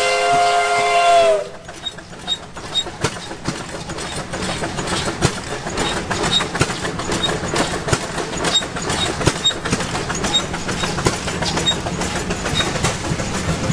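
A steam whistle sounding several tones at once, sagging slightly in pitch as it shuts off about a second in. After it, steady mechanical clattering and knocking grows gradually louder, with a faint high tick about twice a second.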